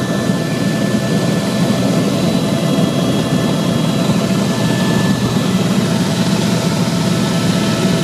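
Helicopter turbine and rotor noise heard from inside the cabin, a steady deep drone with a faint high whine held over it.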